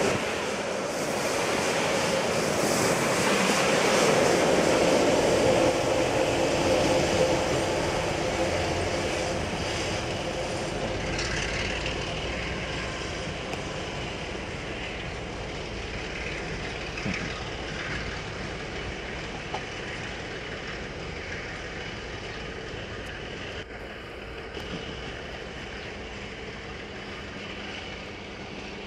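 Passenger train hauled by a KiwiRail diesel locomotive passing close by, its carriages rolling over the rails, then pulling away: the sound is loudest about five seconds in and fades steadily as the train recedes.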